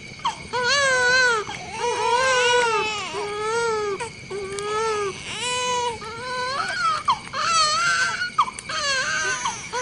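Newborn baby crying: a run of wails, each rising and then falling in pitch, about one a second, with short breaths between.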